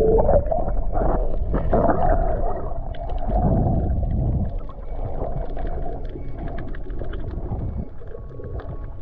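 Muffled underwater sound, heard through a submerged camera: water rushing and bubbling as a diver swims along just under the surface. It is loudest over the first half and eases off after about four and a half seconds.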